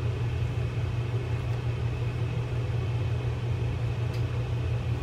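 A steady low background hum, like a motor or fan running, with a couple of faint light ticks as a screwdriver turns a screw out of the reel's side plate.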